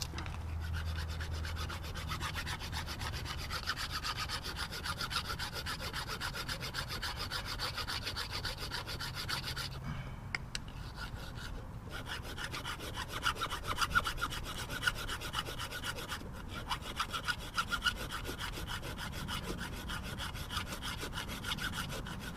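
Steady grinding and rasping of a metal part being ground down, continuing with brief pauses about ten and twelve seconds in.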